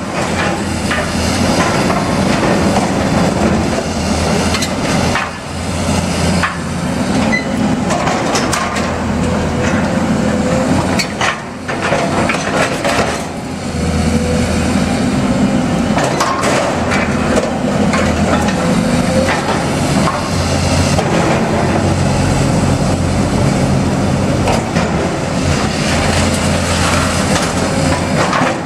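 Hyundai tracked excavator's diesel engine running steadily, with repeated crunches, cracks and knocks as its grab breaks up and drops timber framing and sheet metal from the building.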